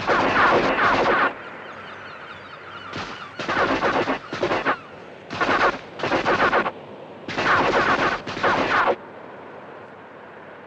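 Automatic gunfire in a series of short rapid bursts, about eight of them, each lasting half a second to a second. The firing stops about nine seconds in.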